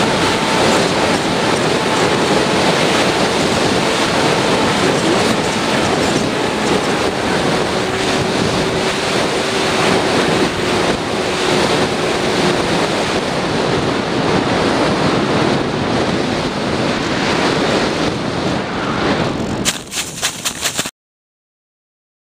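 Airflow rushing over the onboard camera microphone of a flying Bixler/Sky Surfer foam RC plane, with a faint hum from its electric motor and propeller underneath that sinks slightly in pitch. A few quick knocks near the end, then the sound cuts off abruptly.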